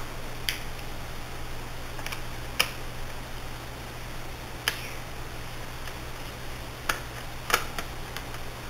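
Scattered sharp clicks and taps, about six in all, of a screwdriver working the screws out of a laptop's screen bezel, over a steady low hum.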